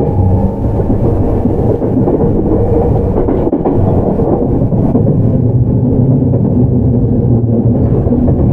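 Running noise of a JR Central 315 series electric train heard from inside the motor car: a loud, steady rumble of wheels on rail and the traction equipment while under way.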